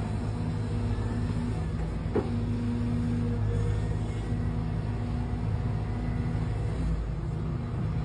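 Sumitomo 210 crawler excavator running steadily as it digs into loose dirt, a low engine hum with tones that come and go as the hydraulics work. One sharp knock about two seconds in.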